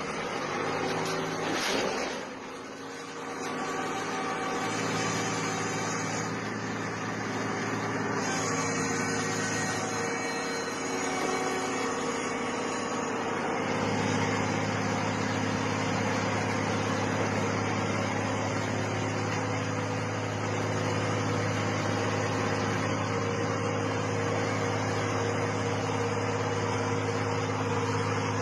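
An engine running steadily with a low, even hum; its note shifts and steadies about five seconds in and again about fourteen seconds in. A brief burst of noise comes about two seconds in.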